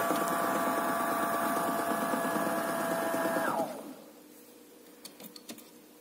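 Miele front-loading washing machine running with a steady whine and a fast rattle, its drum full of excess foam, which winds down and stops about three and a half seconds in. A few faint clicks follow.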